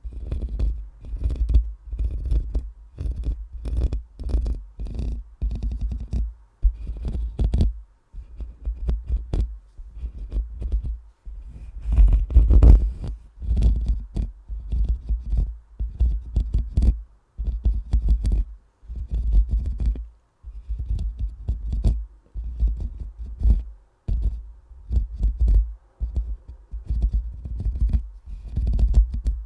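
Microphone being rubbed and scratched directly for ASMR: repeated rough strokes in clusters about one or two a second, each with a heavy low rumble from contact with the mic, with a few short breaks and a louder patch about twelve seconds in.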